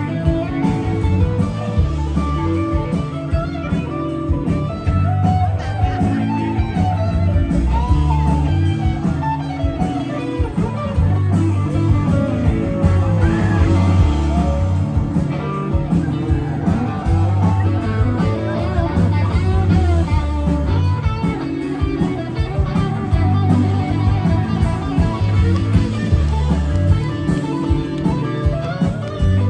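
Live band music led by guitar, blues-rock in style, with a steady beat and a strong bass line.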